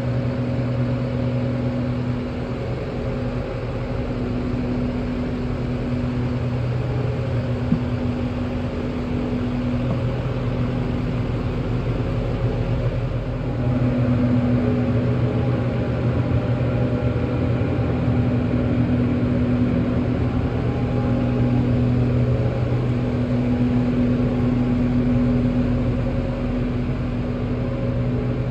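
Chevrolet CC5500 medium-duty truck's engine idling, a steady low hum that swells and fades slightly and grows louder about halfway through.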